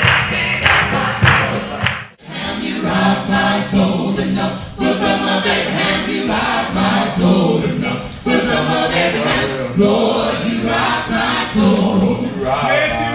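Gospel choir singing: for about two seconds upbeat band music with a lead singer, then after an abrupt cut the full choir sings sustained harmonies a cappella.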